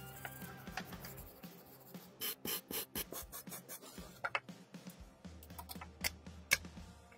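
Background music over a run of short scrubbing and scraping strokes as a rusted pistol is cleaned by hand, densest about two to three seconds in.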